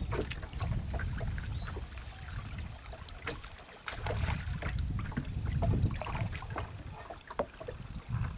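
Water lapping against the hull of a small wooden boat, with a fluctuating low wind rumble. There are scattered light clicks throughout, and a short, high, thin tone repeats every second or so in the background.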